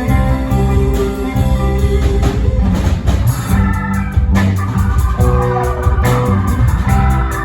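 Live rock band playing during a sound check, an electric organ holding chords over a moving bass line.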